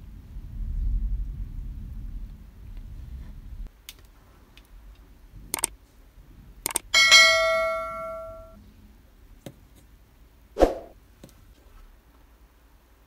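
Subscribe-button animation sound effect: a few mouse clicks, then a bright bell ding that rings out and fades over about a second and a half. A short swoosh follows a few seconds later, after a low rumble at the start.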